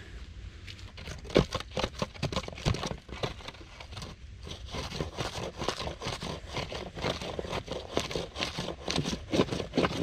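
Dense, irregular crackling and crinkling, like dry material being handled or crushed, starting about a second in.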